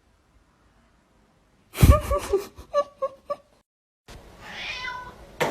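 Domestic cat meowing in a series of short calls, opening with a thump. After a sudden break, a cat gives a longer meow that rises and falls, and there is a sharp click near the end.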